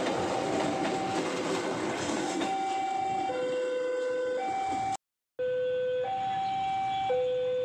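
A two-tone electronic warning tone, switching between a low and a high pitch about once a second. In the first few seconds it sounds over the rushing noise of a passing train. The sound cuts out abruptly for a moment about five seconds in.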